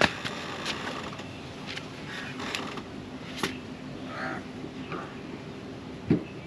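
Sped-up clicks and knocks of kitchen chimney (range hood) parts being handled during cleaning, with a sharp knock at the start and another near the end, and a few short pitched squeaks between them.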